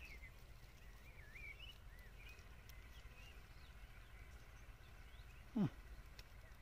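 Faint birdsong of thin, warbling chirps over quiet outdoor background. One brief sound slides quickly down in pitch about five and a half seconds in.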